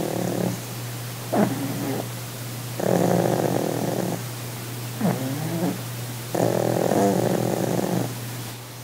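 Pug's rattling, snore-like breathing, the 'purring' of a relaxed flat-faced dog. Long rasping breaths come about every three and a half seconds, with a short sharp breath between each pair.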